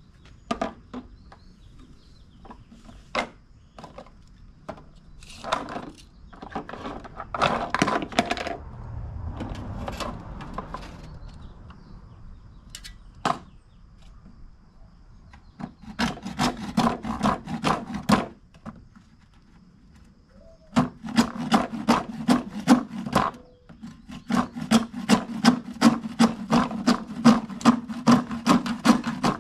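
Hand saw cutting through 1-inch PVC pipe: after scattered knocks and handling, quick back-and-forth strokes, about five a second, in two runs in the second half.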